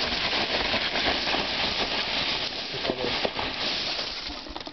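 Foam packing peanuts rustling and crackling as a hand rummages through them in a cardboard box; the rustling dies down near the end.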